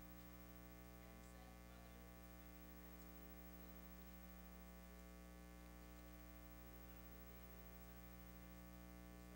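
Near silence with a steady electrical hum from the sound system.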